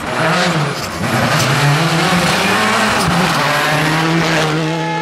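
A 2.0-litre turbocharged four-cylinder World Rally Car driven hard past at close range, engine at high revs. The engine note rises and dips briefly, then holds steady. There are two sharp cracks over it, about a second and a half apart.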